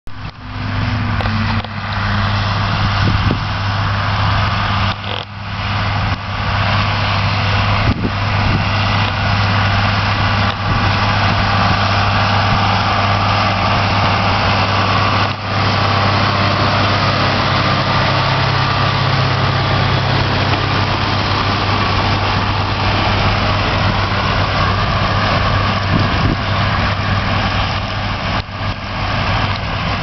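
Massey Ferguson 6480 tractor's six-cylinder diesel engine running steadily under load while it drives a Krone Comprima round baler picking up hay, a continuous loud drone with a deep hum.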